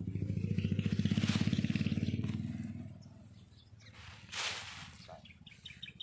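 A shovel scooping and tipping loose rice bran, a short hissing rush about every three seconds. Under it, a small engine runs loudly for the first couple of seconds and then fades away by about three seconds in.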